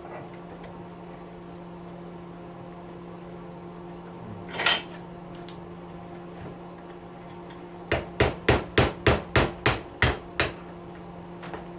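Hammer blows on metal: a single knock, then a quick run of about ten strikes at roughly four a second, driving at a stuck bearing in an electric weed whacker's motor housing. A steady low hum runs underneath.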